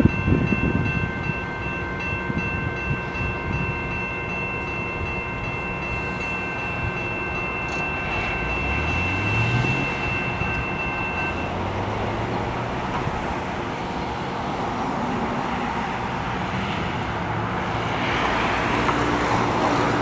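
EMD SD60 diesel-electric locomotive with a V16 two-stroke diesel, running with a steady high whine for the first half. About eight seconds in, the engine note rises as it throttles up. A broad rushing noise builds near the end.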